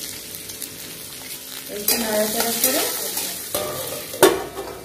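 Potato chunks frying in hot oil in a wok: a steady sizzle with fine crackle. A little after four seconds a steel plate is set over the wok as a lid with a single sharp clank.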